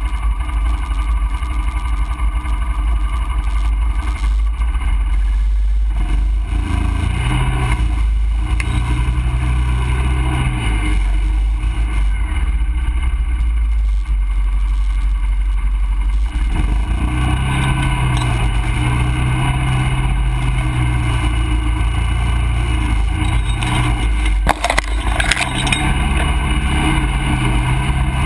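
ATV engine running as the quad rides a rough muddy trail, its pitch rising and falling with the throttle over a low rumble. A sharp knock sounds near the end.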